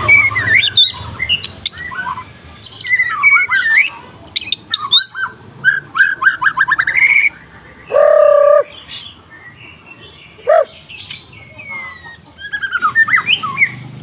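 White-rumped shama singing a varied song of quick rising and falling whistles and rapid twittering phrases, with short pauses. About halfway through comes one louder, lower, harsher held note lasting under a second.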